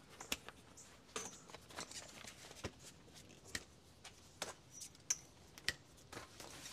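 Quest folding camp chair being unfolded and set up: a string of faint clicks and knocks from its metal frame as the legs and seat open out, about one every second or less.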